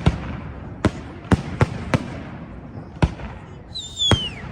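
Fireworks going off: about seven sharp bangs at uneven intervals, with a high whistle that falls in pitch shortly before the last bang.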